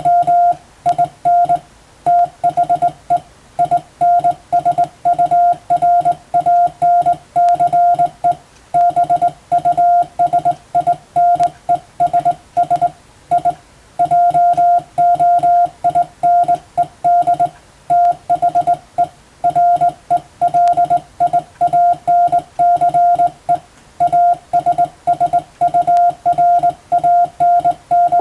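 Morse code sent by hand on a telegraph key: a single steady tone keyed on and off in short dots and longer dashes, in an uneven rhythm of characters and gaps.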